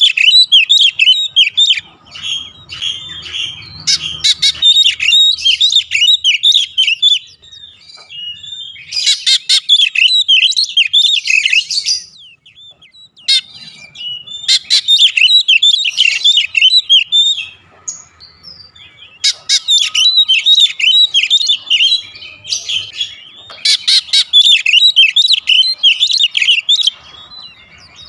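Oriental magpie-robin (kacer) singing loudly: fast runs of varied whistled and chattering notes, delivered in several bouts of a few seconds each with short pauses between them.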